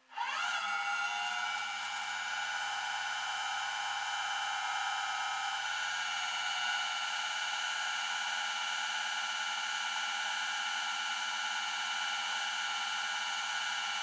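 Rollback tow truck's hydraulic winch system running as the operator works the control lever: it starts suddenly with a brief rising whine, then settles into a steady high-pitched whine over a low hum while the winch pulls a vehicle up the bed.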